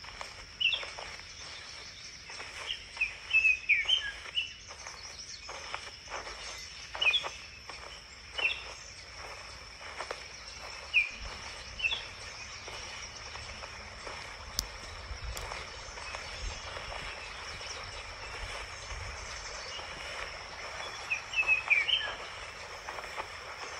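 Small birds chirping in several short clusters of quick downward-sliding chirps, over a steady high insect buzz and outdoor background noise.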